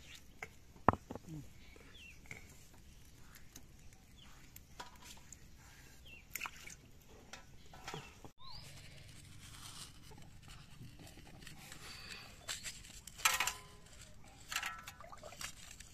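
Faint, scattered clicks, taps and scrapes of hand work at a stone grinding slab as spice paste is scraped off it, with one sharp knock about a second in and a cluster of louder clatter near the end.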